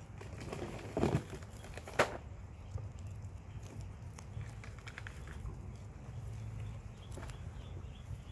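Guinea pigs chewing and crunching green bell pepper and grass, with scattered crisp bites; the sharpest crunches come about one and two seconds in.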